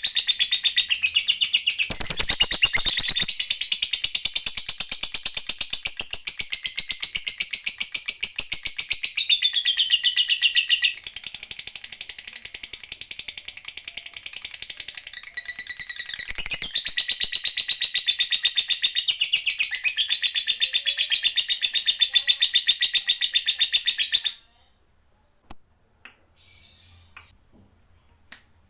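Lovebird's 'ngekek panjang': a long, unbroken chattering trill of rapid, high, repeated notes that stops abruptly about 24 seconds in, leaving only a few faint clicks.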